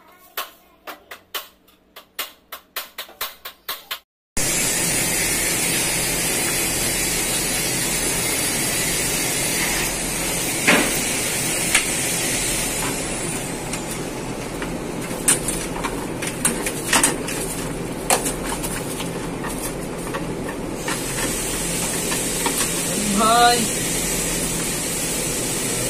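A run of sharp taps, about three a second, then a loud steady hiss. Over the hiss come scattered clicks and knocks from handling a metal electrical distribution board and its wiring.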